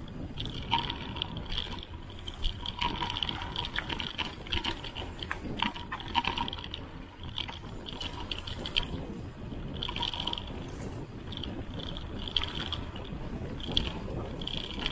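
Mountain bike ridden fast down a dirt singletrack: steady rumble of the tyres on the trail, with rattles and knocks from the bike over bumps. In short stretches throughout, a high buzz from the rear freehub ratcheting as the rider coasts.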